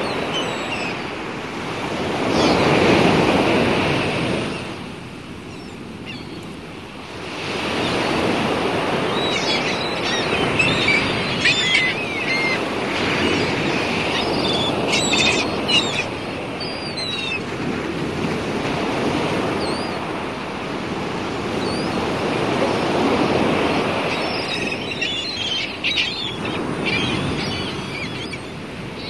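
Sea water washing and surging, swelling and fading every few seconds. Short high chirps sound now and then over it.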